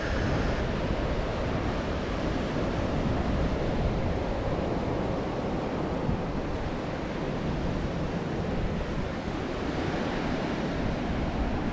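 Ocean surf breaking and washing up on a sandy beach, with wind on the microphone: a steady rushing noise.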